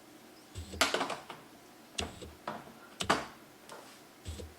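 A few sharp, irregular clicks and knocks of hand tools being handled and set down.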